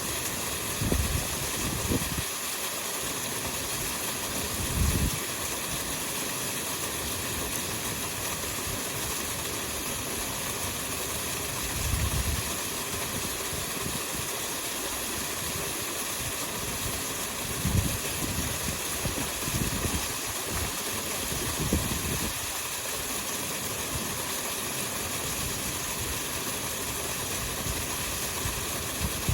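Mountain stream rushing over rocks, a steady hiss, with a few brief low thumps scattered through.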